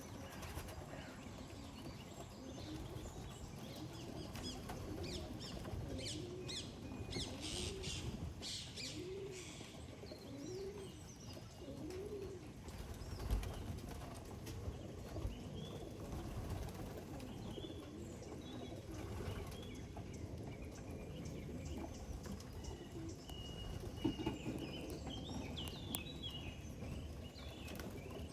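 Racing pigeons cooing, a run of rising-and-falling coos in the first half, with wing flaps. There is a thump about halfway through, and small birds chirp near the end.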